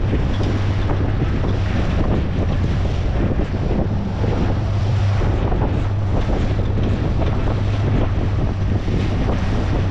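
Boat engine running steadily with a low hum, under heavy wind buffeting the microphone and the rush of water.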